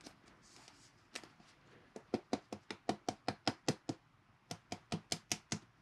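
Light, rapid tapping on a rigid plastic trading-card top loader while a card is worked down into it: a single tap, then a quick run of about a dozen taps at roughly six a second, a short pause, and a second run of about five.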